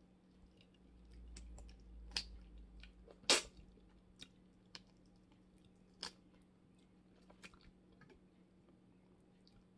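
Eating a cooked shrimp by hand: chewing, with the small clicks and crackles of the shell being peeled off by the fingers scattered through, the loudest about three seconds in.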